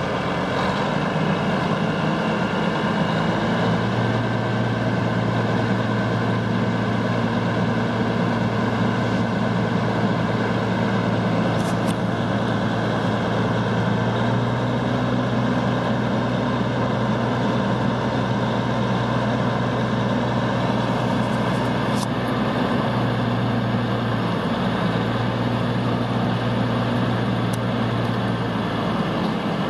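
Caterpillar 3406 inline-six diesel of a 1997 Ford tandem-axle dump truck running steadily while the truck is parked and the dump box is hydraulically raised. The engine note shifts slightly about three and a half seconds in and again near the end.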